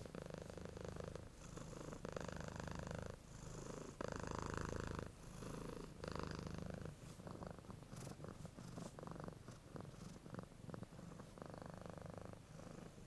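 A cat purring quietly, the purr rising and falling in stretches of about a second or two, one stretch per breath.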